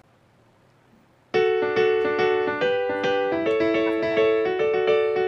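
Near silence for about the first second, then background music starts suddenly: a quick, even run of short keyboard notes, about five a second.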